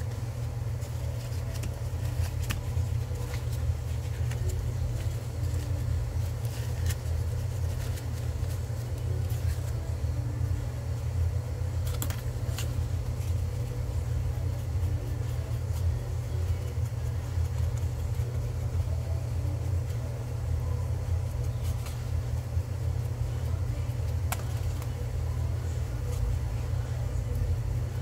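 Steady low rumble throughout, with a few faint ticks.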